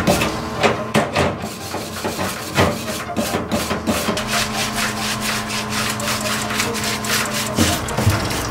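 Scrubbing and rubbing a greasy metal transmission part in a parts washer: a quick irregular run of scraping strokes, with knocks as the part is turned over on the washer's steel grate.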